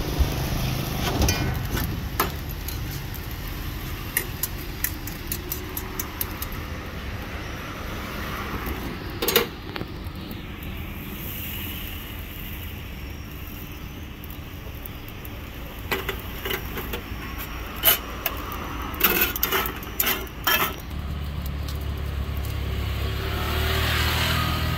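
Roadside street ambience: a steady wash of traffic, with scattered sharp clicks and clinks. Near the end a low vehicle engine rumble builds up.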